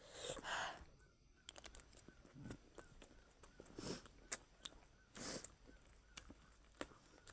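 Quiet eating sounds while having spicy chatpat: three short breathy hisses, sharp breaths against the chili heat, near the start, about four seconds in and about five seconds in, with scattered light clicks.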